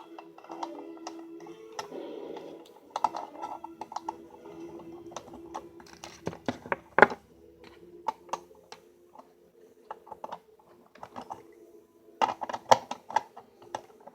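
Irregular clicks and taps of small toy-train locomotive parts and tools being handled and fitted back together, with a louder sharp click about halfway and a quick cluster of clicks near the end. A faint steady hum of tones runs underneath.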